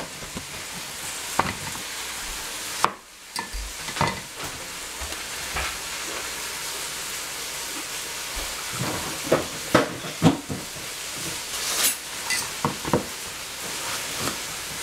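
Food frying in a pan with a steady sizzle. Scattered knocks of a cleaver on a plastic cutting board come through it, most of them in the second half.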